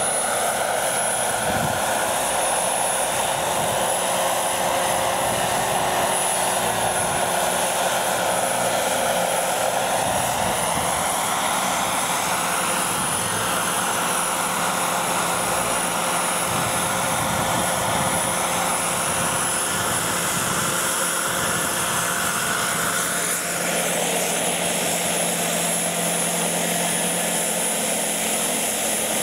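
Radio-controlled scale model helicopters flying, one a scale Agusta Koala: steady engine and rotor noise with a constant high whine, the pitch sweeping up and down as a model manoeuvres and passes.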